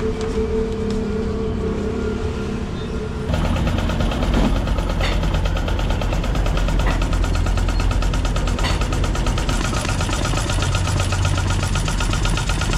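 A steady machine hum, then about three seconds in a belt-driven piston air compressor running loud with a fast, even pulse.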